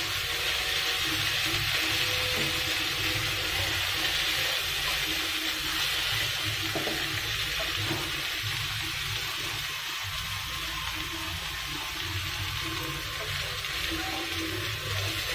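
Prawns frying in oil in a wok, a steady sizzle, while a wooden spatula stirs and turns them, now and then scraping the pan.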